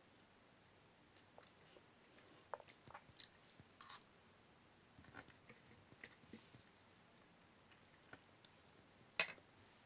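Cockatiel's beak nibbling and biting spaghetti: faint, scattered small clicks and crunches, with a sharper click about nine seconds in.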